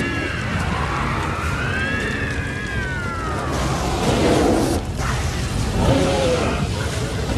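A burning creature's shrill, wavering shriek, rising and falling in pitch, over the steady rush of flamethrower fire. Lower, shorter cries follow in the second half.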